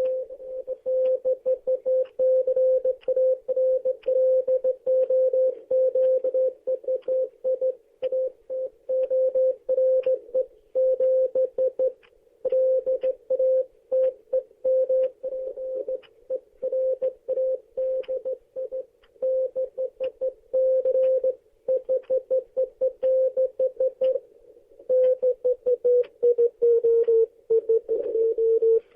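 Morse code sent as a single steady beeping tone, keyed on and off in short and long beeps at a brisk pace, with faint crackly clicks through it like a radio receiver. Near the end the tone drops slightly in pitch.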